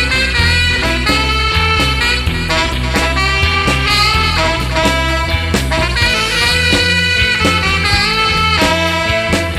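Upbeat swing-style band music with a steady driving beat and sustained melody lines.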